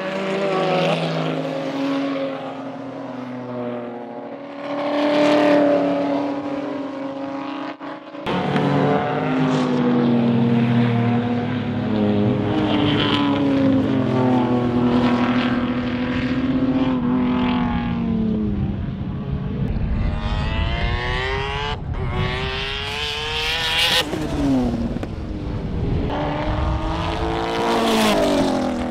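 Racing sports sedans at speed on a circuit, their engines rising and falling in pitch through gear changes and pass-bys. The sound changes abruptly about eight seconds in and briefly drops out a little after twenty seconds.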